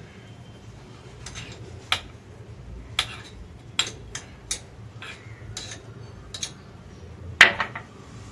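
A spoon clinking and tapping against a bowl or dish as chopped onion is added to chicken mince: about eight sharp, irregular clinks, the loudest near the end.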